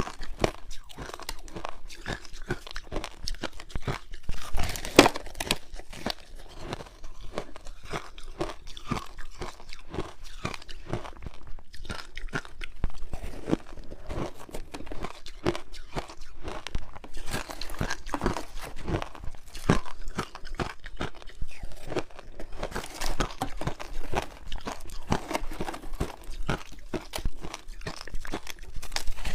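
Teeth biting into frozen passion fruit ice: a continuous run of sharp crunches and cracks, one of the loudest about five seconds in.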